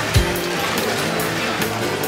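Background music with a steady beat and a deep bass hit just after the start.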